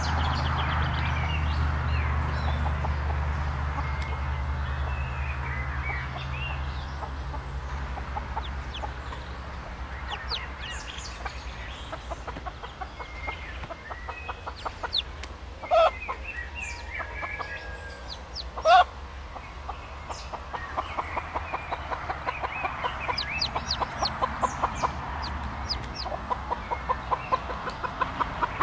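Mother hen with chicks clucking in rapid runs of soft clucks, which grow louder and more frequent toward the end, with high thin peeps from the chicks. Two short, louder calls come from the hen in the middle.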